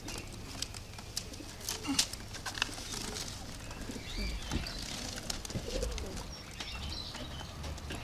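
Racing pigeons cooing in their loft, with scattered short sharp clicks and taps.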